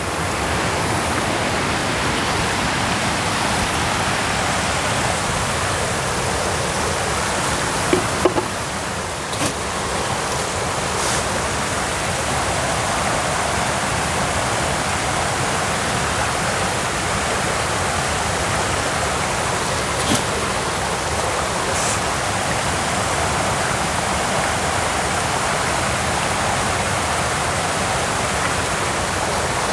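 Steady rushing of flowing water, with a few faint ticks here and there.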